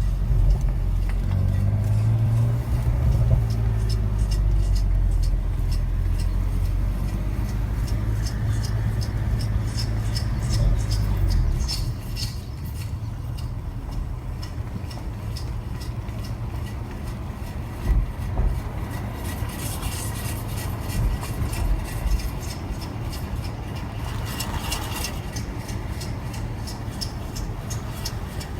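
BMW F80 M3 with its engine running, steady and louder for the first twelve seconds or so, then quieter, under a fast, regular high ticking, the mystery noise from the brakes. A few louder knocks come through about eighteen and twenty-five seconds in.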